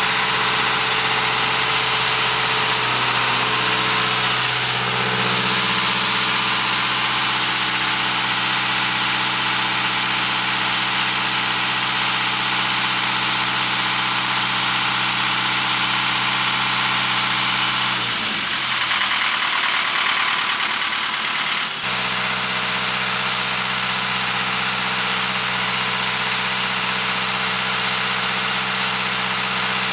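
Onan 12.5 kW generator with a four-cylinder diesel engine running steadily at constant speed, smooth and even. About two-thirds of the way through, its deep hum thins out for a few seconds, then comes back abruptly.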